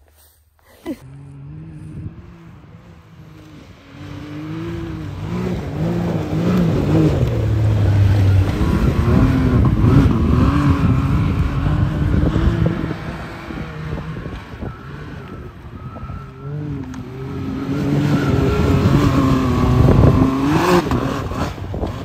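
Can-Am Maverick side-by-side engine revving up and down as it slides around in circles on snow. It builds about four seconds in, eases off in the middle and climbs again near the end.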